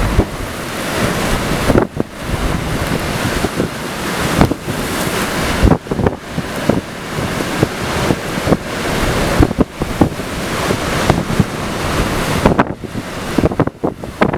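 Strong hurricane wind blowing in gusts, buffeting the microphone with many sharp thumps as the level rises and falls.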